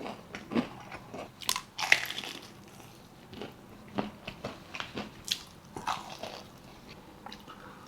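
Close-up crunchy bites and chewing of crispy fried food, irregular crackling crunches, the loudest about one and a half to two seconds in.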